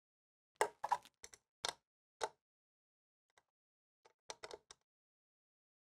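Light clicks and taps as the condenser fan blade of an RV air conditioner is handled and moved by hand: a handful spread over the first couple of seconds, then a quick run of them near the end.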